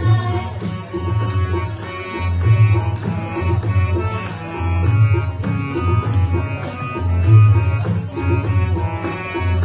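Instrumental passage of a Hindi devotional bhajan: sustained harmonium and keyboard tones over a steady, repeating tabla-style drum rhythm, with no singing.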